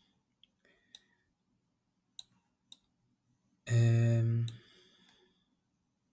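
Computer mouse clicking a few times, sharp and short. About halfway through, a man's voice gives one short hum at a steady pitch, the loudest sound.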